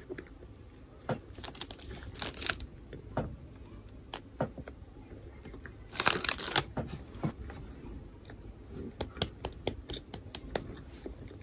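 Paper donut wrapper handled on a table: scattered light taps and rustles, with a longer crinkle of paper about six seconds in.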